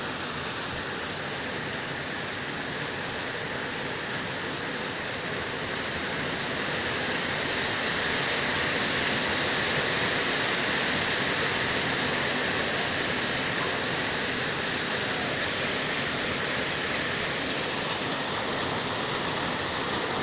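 Heavy rain pouring steadily during a thunderstorm, a continuous hiss that swells a little louder about a third of the way in.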